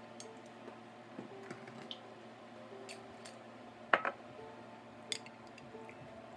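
Glass bottles handled and set down on a bar counter while a drink is poured: a few small clicks, a sharp clink about four seconds in and a smaller one about a second later.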